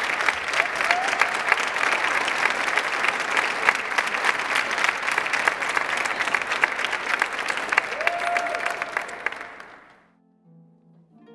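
Audience applauding in a large stone chapel, the clapping dense and steady, then fading out about ten seconds in. Soft music begins just after, near the end.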